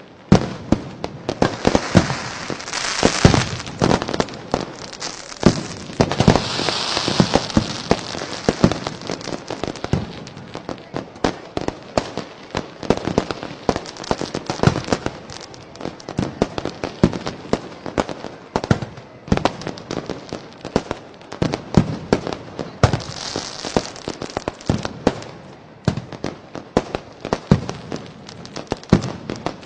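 Fireworks going off in a dense, irregular barrage of sharp bangs and pops. There are spells of hissing, crackling sparks about three and seven seconds in, and again past the middle.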